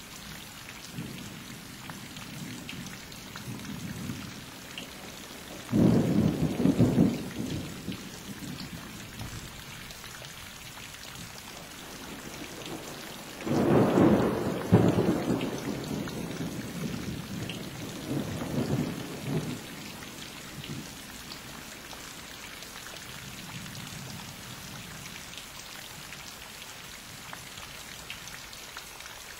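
Thunder rumbling over steady rain, with two loud rolls about six and fourteen seconds in, a weaker one near nineteen seconds, and fainter low rumbles between.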